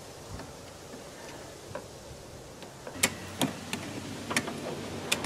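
Sharp metallic clicks of a hand tool working a fitting on a van's AC accumulator: about six irregular clicks in the last two seconds.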